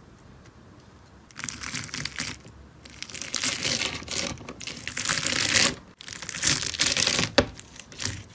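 Slime being squished and pulled by hand, crackling and crinkling in several bursts after a quiet first second or so.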